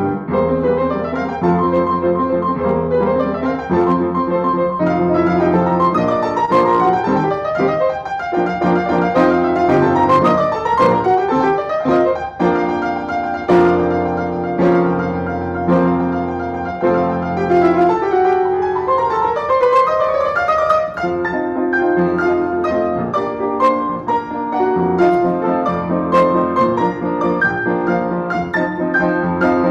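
Upright piano played four hands, one piano with two players, in a busy passage of many quick notes. About two-thirds of the way through, a rising run of notes climbs up the keyboard.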